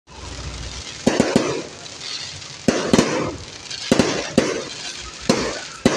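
Aerial fireworks bursting overhead: about nine sharp bangs, several in quick pairs and threes, over a steady crackle of sparks.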